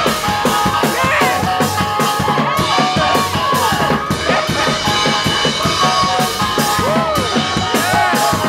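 Live gospel praise-break music: a drum kit playing a dense beat under sustained keyboard chords, with voices shouting and singing over it.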